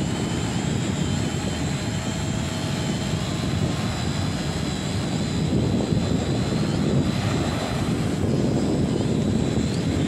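Eachine E520s quadcopter's propellers whining steadily as it hovers in place under GPS position hold, with wind rumbling on the microphone.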